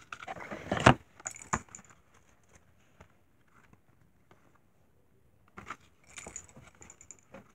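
Handling noise of a folded paper card being rustled and opened, with quick clicks and scrapes. A sharp knock sounds just before a second in, there is a quiet stretch in the middle, and the rustling picks up again near the end.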